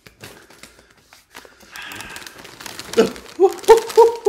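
A chip bag crinkling and crackling as it is handled. About three seconds in, a person's voice makes a few short pitched sounds that run on past the end.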